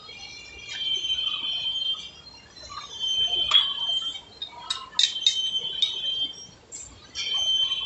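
Heavy metal lathe at work: a high-pitched metallic squeal comes and goes in stretches of about a second, with several sharp metal clinks near the middle.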